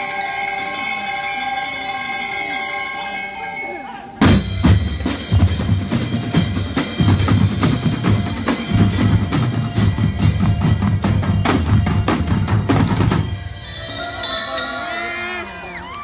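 Drum and lyre band: a held ringing chord, then about four seconds in the drum line of bass drums, snares and tenor drums plays a loud, fast rhythm that cuts off sharply about nine seconds later. Crowd shouting and cheering rises near the end.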